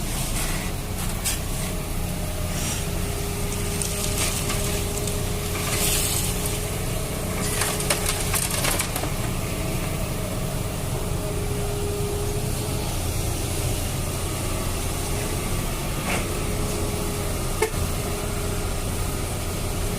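Radio-controlled toy excavator working in sand: a faint, thin motor whine comes and goes over a steady low rumble, with bouts of scraping and crunching sand about four to nine seconds in and a couple of small clicks near the end.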